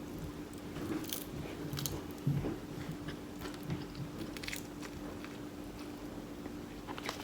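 Close-up chewing and crunching of food, with irregular short clicks and crackles. A steady low hum runs underneath.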